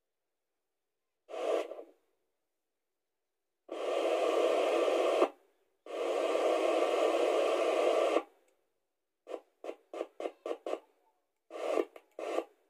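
An old Osian portable FM radio's speaker hissing with static in bursts: three longer ones of about one to two seconds, then a quick run of short bursts near the end. The receiver falls silent in between, where it holds the home-made transmitter's carrier, and hisses when it loses it as a hand moves over the transmitter circuit.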